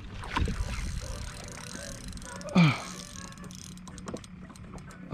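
Fishing reel clicking while a redfish is played on the line from a kayak, with wind buffeting the microphone early on and a short grunt about halfway through.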